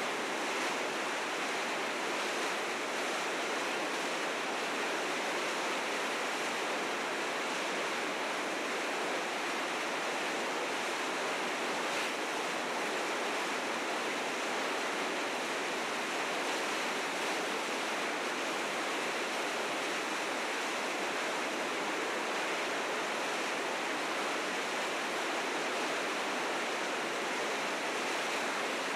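River rapids rushing steadily, the fast, heavy spring meltwater current giving an unbroken roar of white water.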